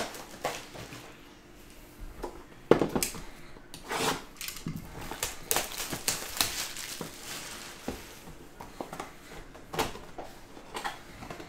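Hands handling and opening a Topps Clearly Authentic baseball card box and its plastic packaging: irregular taps, knocks and scrapes of cardboard with rustling of plastic. A sharp knock comes a little under three seconds in.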